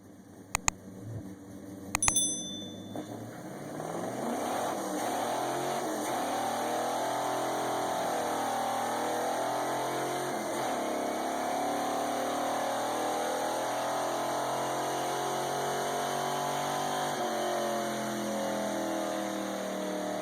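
A few sharp clicks and a brief ringing tone, then from about four seconds in a car engine running steadily, its pitch wavering slightly.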